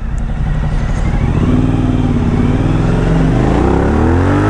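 Suzuki V-Strom 1000's V-twin engine pulling under way, its pitch rising in the second half as the motorcycle accelerates.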